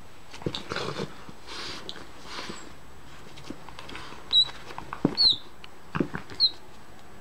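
A dog chewing a pink rubber squeaky toy, squeezing out three short high squeaks in the second half. Soft knocks and breathy huffs come between them.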